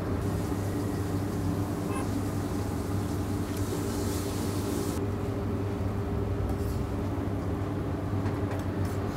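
Steady hum of a kitchen extractor hood fan running over a grill, with a few faint clicks.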